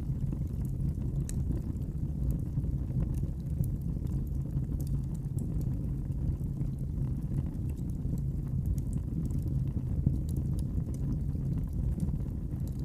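Wood fire in a fireplace crackling: scattered small sharp pops over a steady low rumble.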